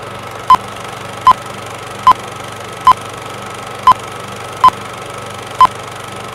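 Film-leader countdown sound effect: short, sharp beeps about once a second, eight in all, over a steady hum and whir.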